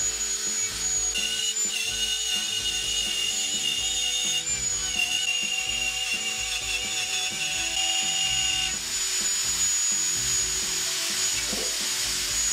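Electric plunge router on a circle-cutting trammel whining at speed as it routes a round hole through plywood, its pitch sagging slightly now and then under load.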